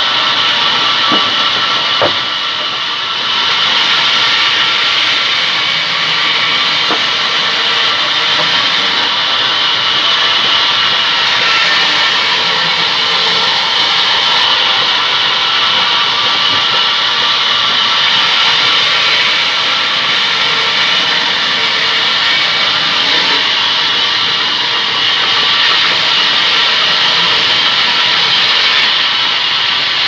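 Sawmill band saw running and cutting rain tree wood into slices: a loud, steady, high rasp of the blade through the timber with a faint steady tone under it. A couple of short knocks about one and two seconds in.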